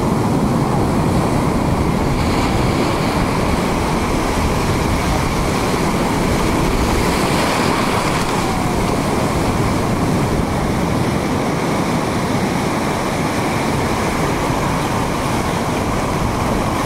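Sea waves breaking over reef rocks, with surf washing in around them: a steady, loud rush of water.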